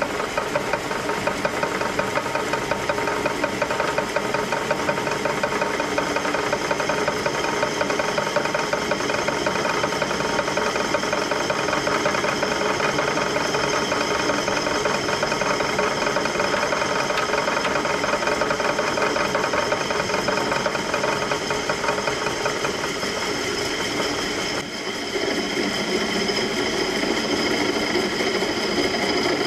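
Drill press running, its bit boring up through the steel bottom of an A/C compressor to drain the oil: a steady motor hum with a rapid cutting rattle. About 25 seconds in the sound dips briefly and changes, with a lower tone coming in.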